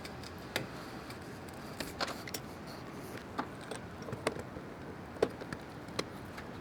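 Scattered light metallic clicks and knocks, about eight spread irregularly, from motorcycle exhaust parts and hardware being handled and slid into place.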